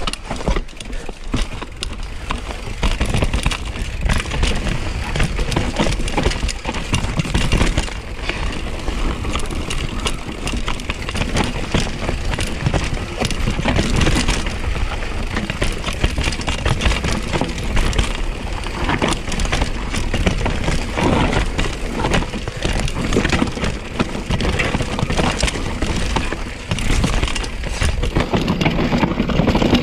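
Mountain bike ridden down a rough, rocky technical trail: tyres rolling over dirt and rock under a constant clatter of knocks and rattles from the bike.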